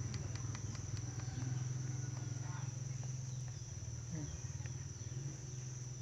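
A steady low, pulsing engine-like hum with a constant high-pitched insect whine over it, and a few light clicks in the first second.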